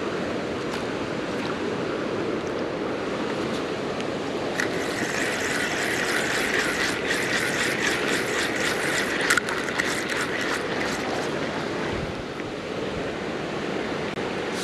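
Steady rush of a shallow river running over rocks. From about four and a half seconds in until about eleven seconds, a spinning reel is cranked, a fast whirring with rapid clicks, as line is wound in.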